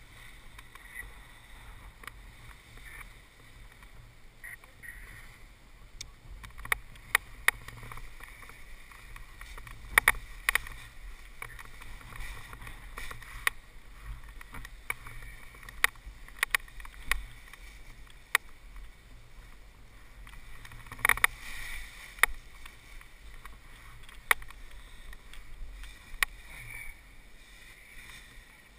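Paraglider gear being handled on a grassy launch: rustling of the nylon wing and its bag, with footsteps in dry grass and irregular sharp clicks and knocks from the kit. Under it is a low, steady wind rumble on the microphone.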